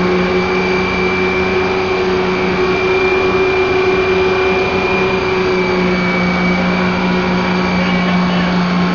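A submarine's diesel engines running steadily in the engine room: a loud, even drone with a steady high whine over it.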